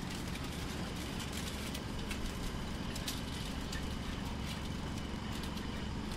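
Famur FR 250 roadheader running, its rotating cutting head grinding into rock: a steady low mechanical rumble with irregular sharp clicks and cracks of breaking rock.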